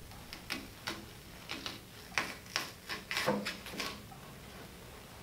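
One-handed rocker knife rocking down through a red onion, its blade knocking on a wooden cutting board in a run of irregular taps that stop about four seconds in.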